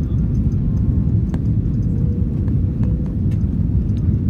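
Steady low rumble of an airliner's jet engines and airflow heard inside the cabin on final approach to landing, with a few faint clicks.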